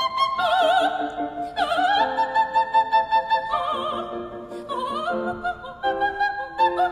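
Operatic singing: a high voice holding long notes with a wide vibrato, over instrumental accompaniment.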